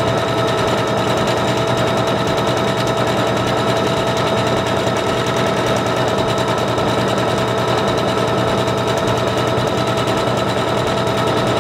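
SINGER Confidence 7640 computerized sewing machine sewing steadily at an even speed: a fast, even needle clatter over a steady motor whine, stitching a narrowed decorative stitch.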